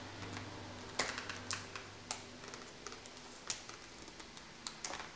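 Small plastic remote control being handled: scattered, irregular light clicks and taps of its casing and buttons, over a faint low hum.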